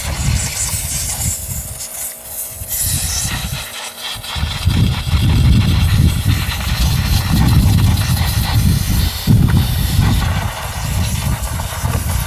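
Compressed air hissing from a blow gun as it blows debris out of the engine's cooling shrouding, over an uneven low rumble that gets louder about four to five seconds in.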